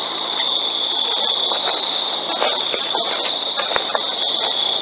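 Steady, high-pitched chorus of night insects, like crickets, running without a break. A couple of faint ticks come through it near the end.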